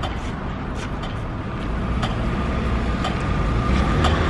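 Steady city street traffic rumble at an intersection, with faint ticks roughly once a second. It grows louder over the second half as a vehicle approaches.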